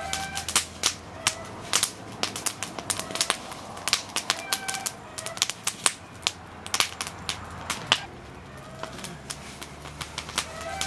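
Wood fire of dry twigs and branches crackling and popping with irregular sharp snaps, while birds call briefly every few seconds in the background.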